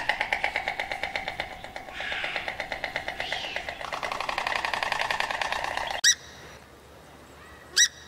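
An animal's rapid pulsing call, many pulses a second, runs until about six seconds in and stops suddenly. Then come two short, sharp calls from a swamphen, about a second and a half apart.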